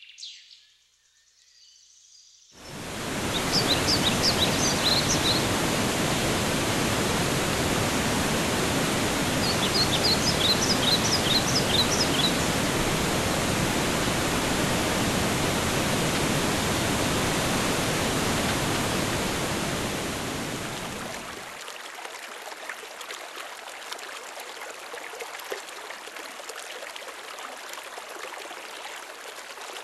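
Rushing water, loud and steady, starting abruptly, with a bird's quick series of high chirps over it twice. About 21 s in, the rush gives way to a quieter, thinner hiss.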